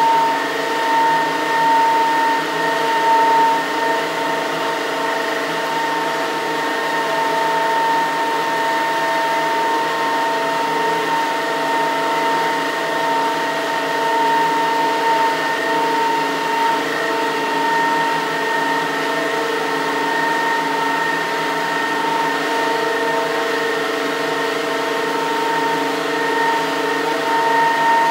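Micro-hydro unit of a small single-jet vertical-axis Pelton turbine with a directly coupled permanent-magnet synchronous generator, about 1.5 kW, running steadily under test. It makes an even high whine with a second, higher tone above it, over a constant rushing noise.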